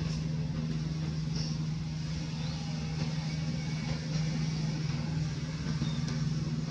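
A motor running steadily, giving a continuous low hum, with a few faint high chirps over it.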